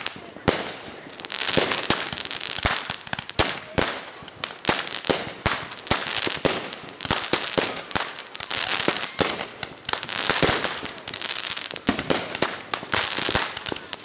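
Consumer fireworks going off: an irregular string of many sharp bangs and pops, several a second at times, mixed with spells of hissing crackle.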